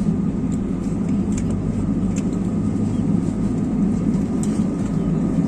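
Steady low drone inside a parked airliner's cabin, the ventilation and aircraft systems running while it waits at the gate, with a few faint clicks over it.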